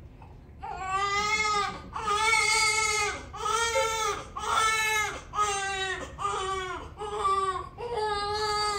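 Newborn baby crying in a string of short, pitched wails, about one a second, starting just under a second in.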